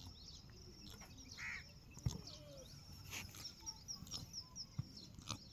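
Faint ambience of small birds chirping, with a quick run of high chirps about three and a half seconds in, and a few soft clicks.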